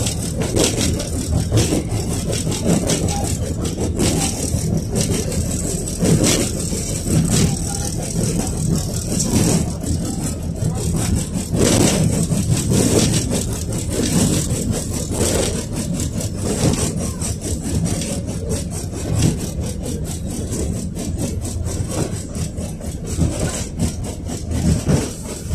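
Inside a KTM-5 (71-605A) tram on the move: wheels running on the rails under a steady low hum, with the car body rattling and many sharp clicks and knocks, more of them in the second half.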